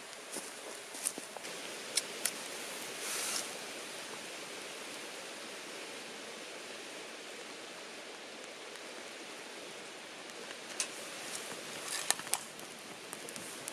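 A steady rushing noise, like outdoor water or wind, with scattered sharp clicks and small taps, a few around two seconds in and a cluster near the end, and a brief hiss about three seconds in.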